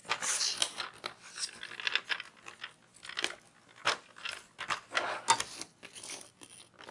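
A glued-shut cardboard box being cut and prised open: a run of irregular crunches and scrapes of the card giving way.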